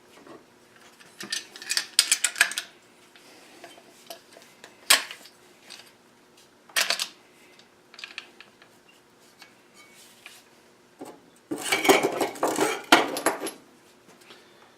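Metal clinking and clattering as an angle grinder, its steel guard and its wheels are handled. The sound comes in several short bursts, the longest and loudest near the end.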